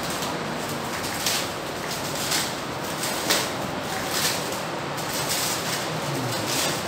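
Clear plastic stretch wrap crinkling in short crackles, about once a second, as it is pulled off a stainless steel soft-serve ice cream machine, over a steady background hiss.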